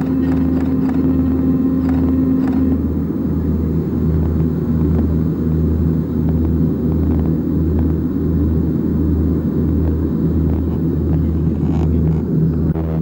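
Aircraft engine and propeller drone mixed with wind rushing through the open jump door: a loud, steady rumble with a slow, even throb. A steady hum in it cuts off about three seconds in.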